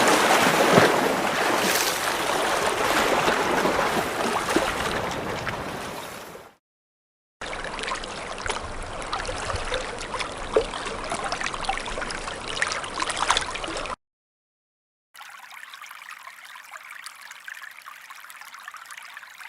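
Three water sound effects in a row, each ending abruptly: running water loud at first and fading out, then trickling and gurgling water with small splashes and drips, then a quieter, thin trickle.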